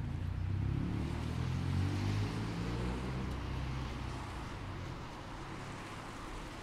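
A motor vehicle driving past: its engine hum and tyre noise swell over the first couple of seconds, then fade away after about four seconds.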